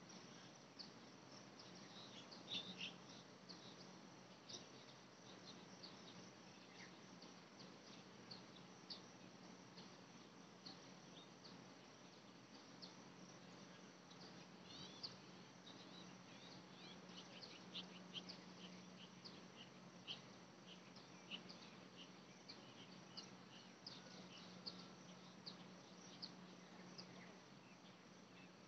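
Faint outdoor ambience: scattered short, high chirps, several a second and irregular in timing, over a low steady hum.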